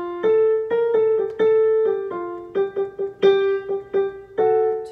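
Piano playing the first clarinet part as a melody of about a dozen struck notes, mostly two close pitches together (the upper and lower notes of the divided line at once). The last note is held and fades near the end.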